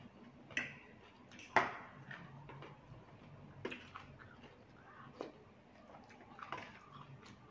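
Close-up eating sounds: chewing with wet mouth smacks, and metal fork and spoon clicking against the plate as khanom jeen noodles in curry are stirred and lifted. About five sharp clicks are spaced through it, the loudest about one and a half seconds in.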